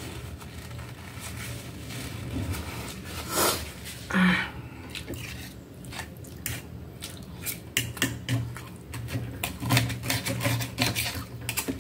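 Two short breathy blasts into a tissue about three and four seconds in. Then a run of sharp clicks and scrapes as a knife and fork cut through crispy breaded chicken and knock on a metal tray, over a faint steady hum.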